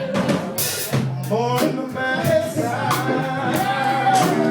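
Blues band playing: guitar with bending notes over drums.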